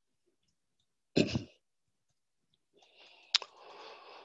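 A man's single short cough into a headset microphone about a second in, then a softer rustling noise with one sharp click near the end.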